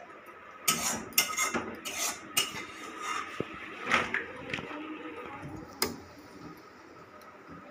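Metal spatula scraping and knocking against a metal kadai as the last of the curry is scraped out: a run of clatters and scrapes in the first couple of seconds, then single knocks about four and six seconds in.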